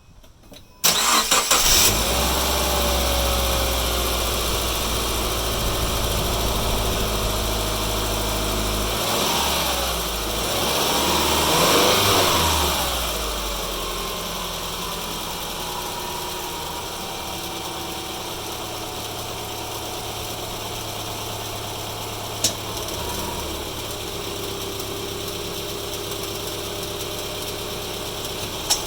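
Subaru Forester 2.5 XT's turbocharged flat-four engine is cranked by the starter and catches about a second in. It runs fast, revs up and back down once, and settles into a steady idle. Two sharp knocks come later, about six seconds apart.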